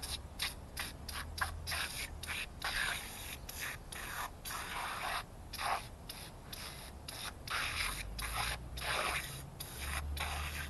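Aerosol can of foaming engine degreaser spraying onto a valve cover: a hiss in many short bursts, each cut off by a brief pause as the nozzle is pressed and let go.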